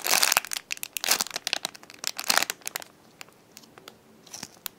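Crinkling and crackling as a squishy toy is handled, dense for the first couple of seconds, then quieter, with a few clicks near the end.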